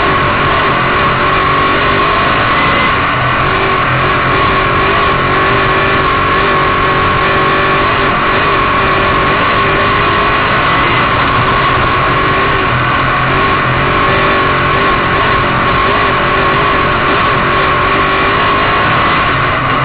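Sportsman modified race car's V8 engine running hard on a dirt oval, heard from inside the cockpit as a loud, steady drone. Its pitch rises and falls a little as the throttle comes on and off through the turns.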